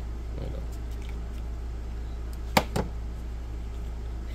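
Two sharp plastic clicks about a quarter second apart, a little over halfway through, as the handheld radios' battery packs are handled and unclipped, over a steady low hum.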